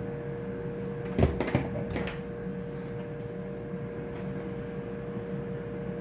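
A few sharp metal knocks and clunks about a second in, then quieter handling, as parts of an elevator brake coil assembly (plunger, rod and sleeve) are worked by hand and the plunger is drawn out of the housing. A steady hum runs underneath.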